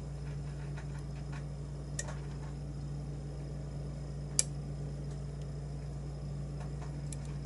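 Faint metallic clicks of a lock pick working the pins of a challenge lock held under tension, with a sharper click about two seconds in and the loudest about four seconds in, over a steady low hum.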